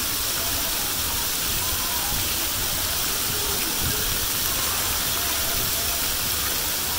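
Steady rushing hiss of water running down water slides and splashing into a shallow pool, with faint children's voices.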